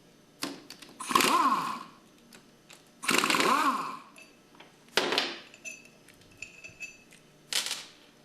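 Cordless power driver whirring in four short bursts, its pitch rising and falling with each squeeze of the trigger, as it backs out the 5 mm bolts holding the pump's suction manifold.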